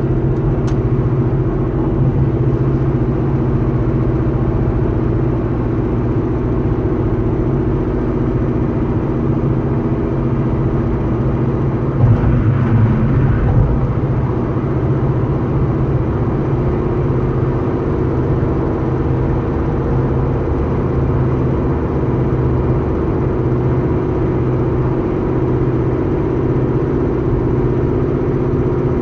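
2011 Honda Civic running with a steady hum made of several even, unwavering tones; this is the unexplained humming noise the owner wants diagnosed. About twelve seconds in there is a brief louder, rougher patch lasting a second or two.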